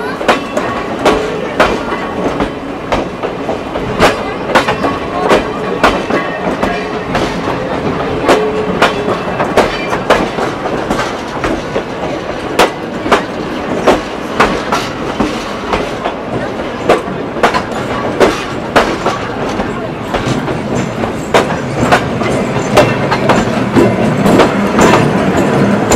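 Steady rumble of a train on the move, with wheels clacking sharply over rail joints about once or twice a second.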